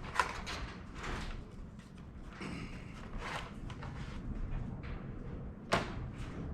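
Handling noises as a heavy battery cable is picked up and checked: scattered rustling with a sharp knock just after the start and another near the end.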